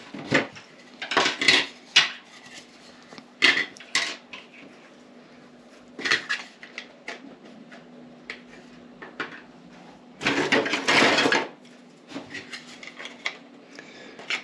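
3D-printed plastic parts being picked up, handled and set down: a series of short clacks and rattles, with a longer stretch of rattling about ten seconds in.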